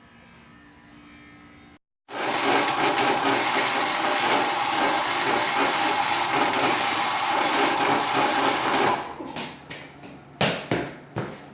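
Metalworking power tool running loud and steady for about seven seconds, a harsh noise with a steady whine in it, then cutting off suddenly, followed by a few sharp metal knocks.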